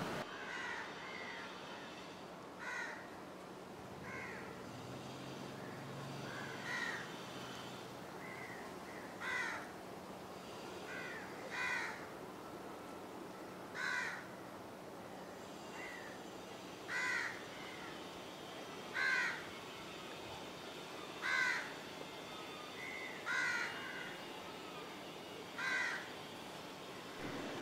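A crow cawing again and again, one loud call every two seconds or so, with fainter calls in between.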